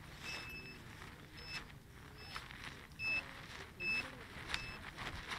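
Electronic beeper sounding six short high-pitched beeps, about one every 0.8 seconds, the first one longer than the rest, with faint voices in the background.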